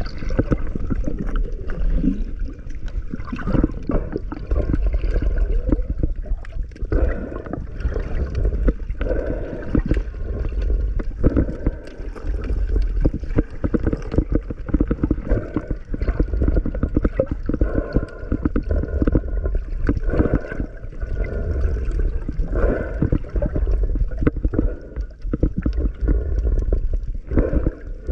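Muffled, continuous underwater sound of water gurgling and churning, heard through a submerged camera, with irregular surges throughout.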